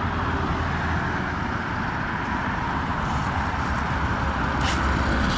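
Steady road traffic noise from passing vehicles: an even low rumble with hiss above it.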